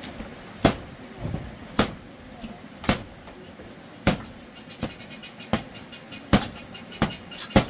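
A series of about nine sharp knocks, roughly one a second, each a hard blow on a solid surface.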